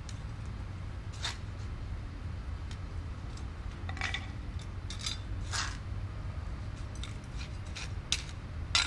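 Steel hand trowel scraping and clinking on concrete as it scoops loose cold-patch asphalt and drops it into a driveway expansion joint: scattered short scrapes and the rattle of the loose granular mix, the loudest near the end, over a steady low rumble.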